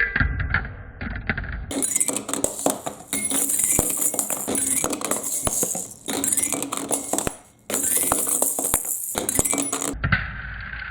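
Marbles clicking and clattering down a plastic block-and-magnet marble run with running water, with many quick clinks over a steady hiss. The sound changes abruptly several times.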